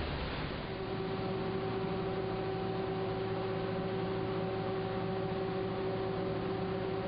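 Steady hum and hiss of foundry machinery, with a steady droning tone joining about a second in.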